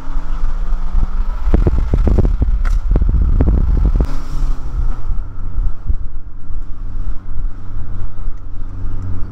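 A Mazda car's engine running, with road rumble, heard from inside the cabin while driving. About a second and a half in, a couple of seconds of loud buffeting hits the microphone. The engine then settles to a steady low hum.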